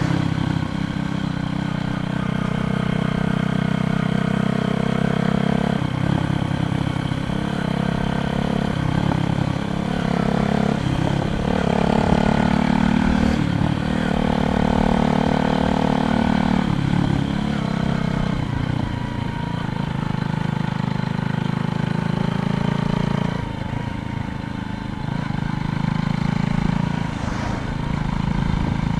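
Motor vehicle engine running steadily, its pitch rising and falling several times.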